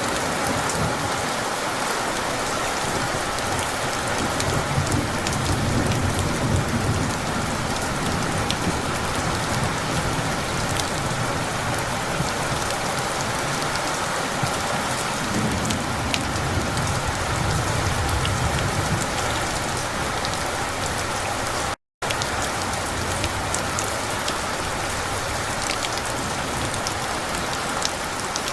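Steady heavy rain falling and pattering on surfaces, with low rumbles of distant thunder swelling twice: a few seconds in, and again past the middle. The sound cuts out completely for an instant about three-quarters of the way through.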